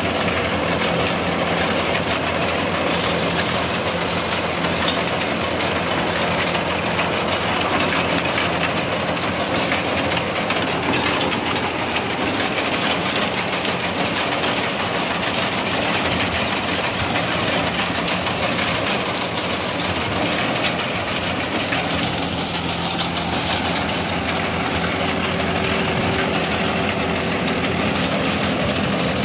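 Mahindra 575 DI SP Plus tractor's four-cylinder diesel engine running steadily under load. It is driving a front-mounted Shakti Kisan reaper binder, whose cutting and binding mechanism runs along with the engine as it cuts standing wheat.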